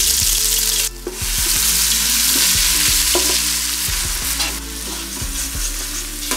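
Ginger, garlic and shallot paste sizzling loudly in hot groundnut oil with whole spices in a stainless steel pot, while a spoon stirs it around. The sizzle dips briefly about a second in, then comes back and eases a little in the second half.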